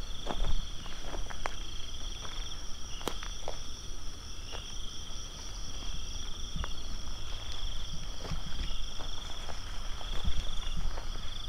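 Night insects chirring steadily in a high, unbroken chorus. Scattered clicks and scuffs of footsteps on a dirt track sound over it.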